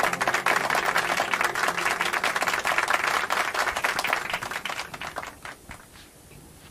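Studio audience applauding, the clapping thinning out and dying away about five seconds in.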